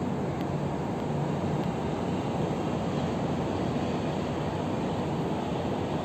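Steady hum of city traffic mixed with wind, an even noise with no distinct events standing out.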